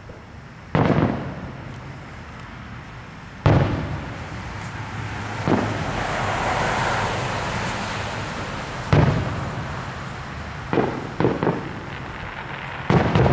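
Aerial fireworks shells bursting: about seven sharp booms, each trailing off over a second or so, two of them close together near the end. A hiss swells and fades between the booms in the middle.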